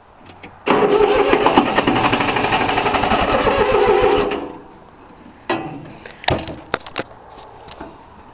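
Three-cylinder Yanmar diesel cranking on its starter motor for about three and a half seconds without catching, because its fuel lines have not been bled of air. A few sharp knocks and clicks follow.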